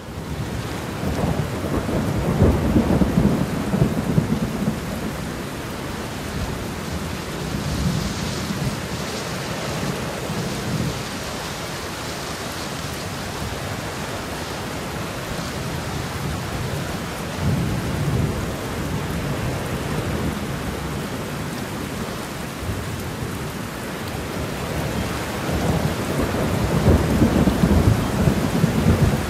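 Steady rain falling on a windowsill and windowpane, a continuous hiss of drops. A deeper low rumble swells up and fades away four times.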